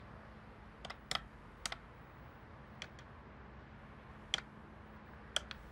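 Keys of a small laptop keyboard being typed on: a handful of short, separate clicks at irregular intervals, some coming in quick pairs.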